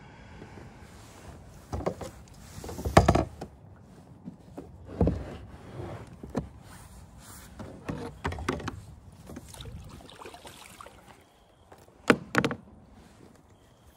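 Irregular knocks and rustling of gear being handled against a kayak's hull; the loudest are a knock about three seconds in and two sharp knocks close together about twelve seconds in.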